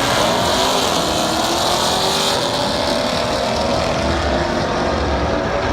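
A race car's engine running hard at high revs, its pitch rising slowly, as in a drag car accelerating down the strip.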